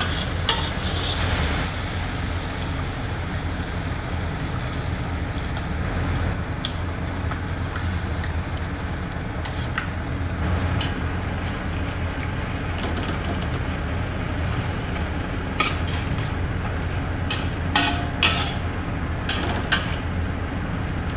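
Sour rice congee with chopped chilies and perilla sizzling and bubbling in a wok over high heat, over a steady low hum. A metal spatula stirs, scraping and clinking against the wok now and then, more often in the last few seconds.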